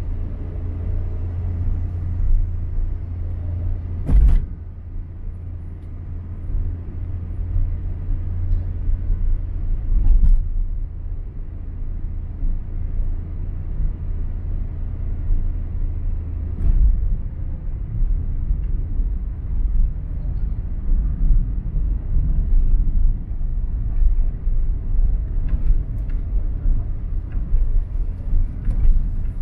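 A road vehicle driving along: a steady low rumble of engine and tyres, with a few sharp thumps, about three, spread through.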